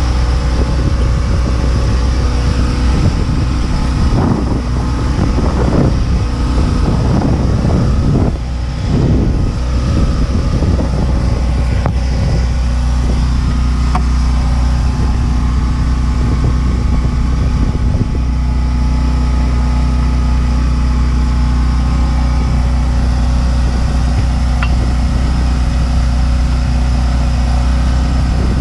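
A steady low engine drone, with a run of knocks and rattles between about 4 and 10 seconds in as brake parts are handled and fitted.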